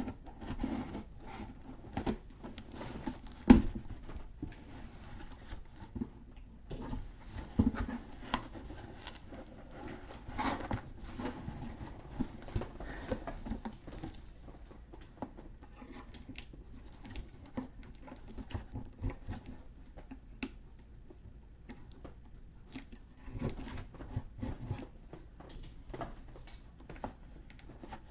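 A taped-shut shipping package being handled and worked open by hand: irregular taps, scrapes and rustles, with a sharp knock about three and a half seconds in.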